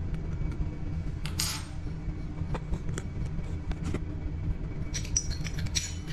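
Metal plumbing fittings clicking and clinking as a stainless steel shower-hose adapter and braided hose are handled at a chrome angle valve, with a brief scrape early and a quick cluster of clinks near the end, over a steady low hum.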